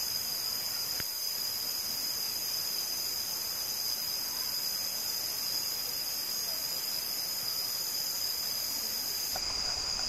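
Steady high-pitched chorus of forest insects, a constant buzz that holds one pitch, with a faint click about a second in.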